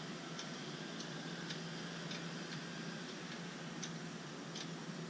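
Faint, light ticks, roughly two a second and not quite even, over a steady low hum.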